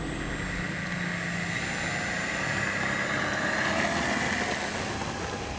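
A 650 kV brushless electric motor turning an 11-inch three-blade propeller on an RC model plane, running steadily with a thin high whine and propeller buzz. It builds a little in the second half as the pitch slowly rises, the throttle going up for the takeoff run.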